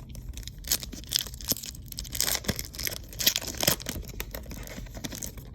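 A Panini Haunted Hoops trading-card pack wrapper being torn open and crinkled, in a run of irregular crackling rips.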